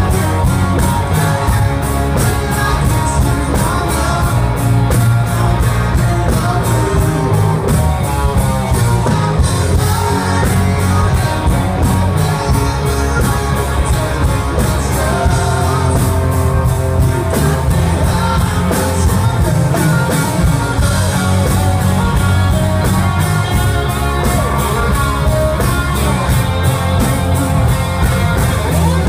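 Live rock song played by a band: a male singer over strummed acoustic and electric guitars with a steady beat, loud and boomy in the room.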